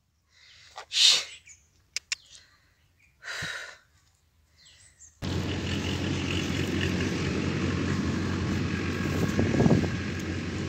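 A few brief noises and two sharp clicks, then, from about halfway, a steady outdoor background rumble with birds chirping.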